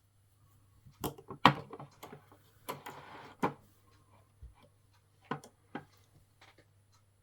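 Aluminium-scaled Swiss Army pocket knives handled and set down on a hard surface: about half a dozen sharp clicks and taps, the loudest about one and a half seconds in, with a short scraping slide around three seconds in.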